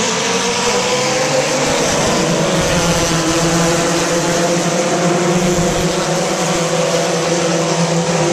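A field of four-cylinder ministock race cars running together in a pack at the start of a feature race: a loud, steady drone of many engines whose pitches slowly rise and fall.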